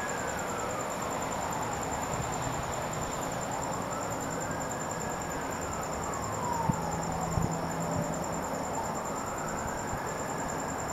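Emergency-vehicle siren wailing slowly up and down, about two full rises and falls, over a steady outdoor hiss. A constant high insect trill runs beneath it.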